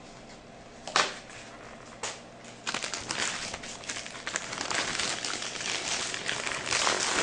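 Toddler making noises with her tongue: two sharp clicks about a second apart, then a long crackly, spluttering noise that grows louder toward the end.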